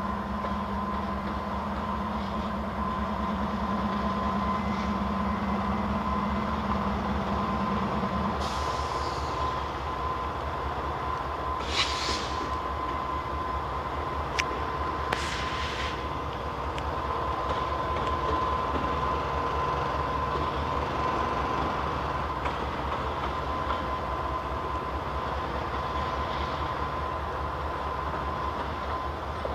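Freight train headed by several GE Dash 9 diesel-electric locomotives rolling past, a steady heavy engine rumble with a constant whine over it. A few short high hisses break in around the middle.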